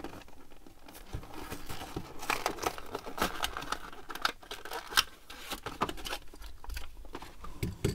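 A clear plastic blister pack being pried and peeled off its cardboard backing card, crinkling and crackling irregularly as the card tears, with a sharper snap about five seconds in.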